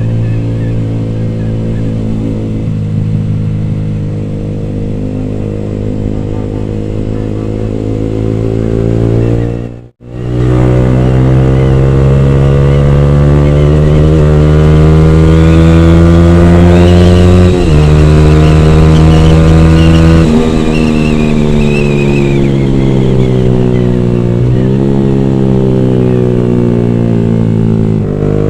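Yamaha R15 V3's single-cylinder engine through a D'crow Blaxton GP carbon aftermarket exhaust, ridden through the gears: the note rises under acceleration and steps down in pitch at each gear change. The sound cuts out sharply for a moment about ten seconds in.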